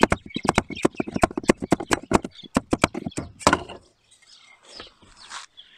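Mallet hammering rapidly on the end of a timber block held against the plastic retaining ring of a fuel pump in the fuel tank, several sharp knocks a second, knocking the ring round to loosen it. The blows stop about three and a half seconds in, leaving only faint shuffling.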